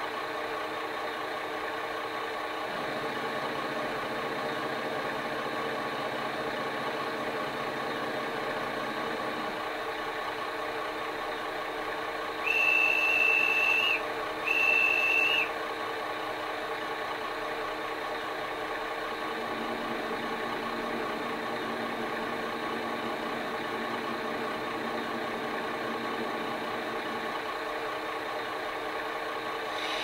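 DCC sound decoder in a Dapol Class 21 model diesel locomotive playing a recorded diesel engine idling steadily, with a deeper hum coming in and out twice. About halfway through, the horn sounds in two short blasts, the loudest thing heard.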